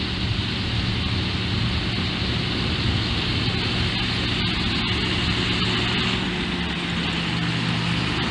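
Heavy machinery engine running steadily with a low, even hum, under a constant hiss.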